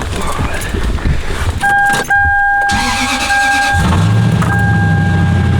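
A warning chime tone sounds inside the cab. About four seconds in, the first-generation Toyota Sequoia's 4.7-litre V8 starts and settles into a steady idle.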